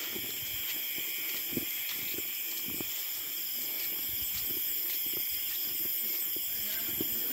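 Dense chorus of night insects, a steady high shrill in several stacked pitches, with irregular soft footsteps on a grassy path underneath.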